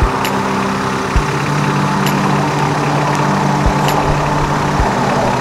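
A 4x4's engine idling steadily, with a few dull knocks.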